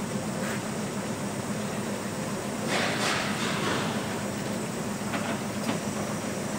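Steady background hum and noise of a large car service workshop, with a few brief noises about three seconds in and again near the end.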